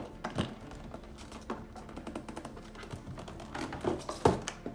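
Cardboard presentation box handled on a wooden table: irregular light taps, clicks and scrapes as it is tilted and opened, with a sharper knock near the end.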